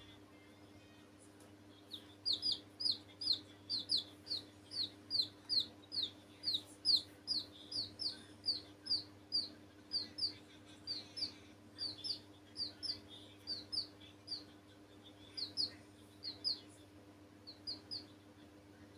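Baby chicks peeping: a long run of short, high, downward-sliding peeps, about two to three a second. They start about two seconds in and go on, with a few brief pauses, until shortly before the end.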